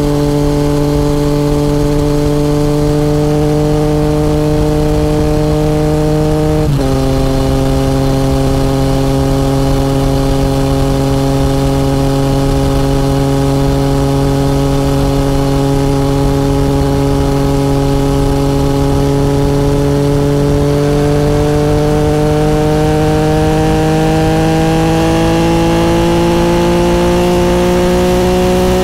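2014 Yamaha FZ-09's three-cylinder engine running under load at road speed. About seven seconds in the pitch drops suddenly as it shifts up a gear. After holding steady it rises slowly through the last part as the bike accelerates.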